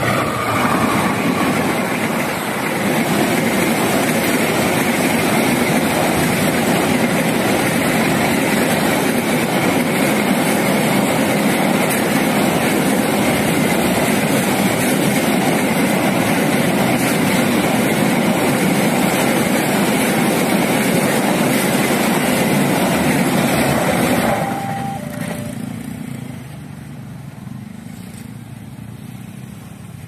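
Container freight train hauled by a CC 206 diesel-electric locomotive passing close by: the loud, steady rumble and clatter of the wagons on the rails. The train noise ends suddenly about 24 seconds in, leaving a much quieter background.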